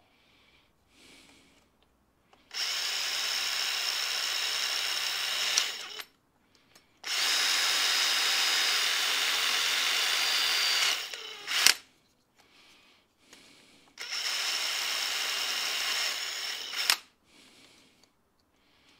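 Cordless drill running in three steady whining bursts of about three to four seconds each, drilling a rivet hole through a mending plate on a plastic toilet-cistern flush part. Each burst ends with a sharp click.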